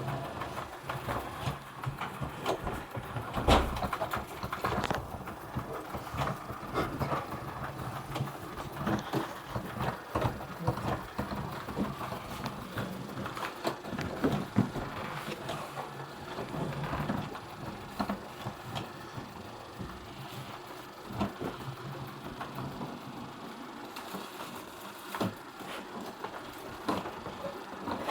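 CHUWI ILIFE V7S robot vacuum cleaner running: a low motor hum under many irregular clicks and knocks, the loudest about three and a half seconds in.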